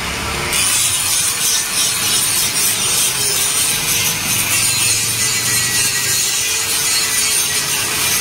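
Handheld electric angle grinder grinding down weld beads on a steel flat-bar frame: a steady, loud rasp of the disc on the metal over the motor's whine, whose pitch wavers slightly as the disc is pressed and eased.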